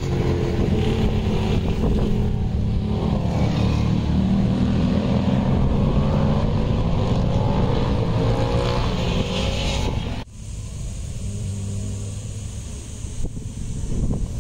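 Motor vehicle engines running, their pitch rising and falling as they rev, for about ten seconds. The sound then cuts off abruptly to a quieter wind-like hiss.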